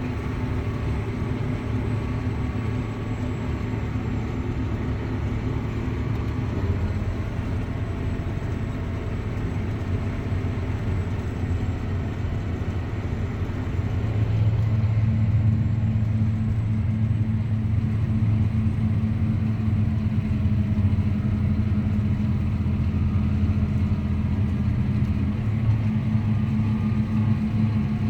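Farm tractor engine running steadily while pulling a tillage implement through the field. About halfway through, the engine note drops slightly and grows louder, as if taking on more load.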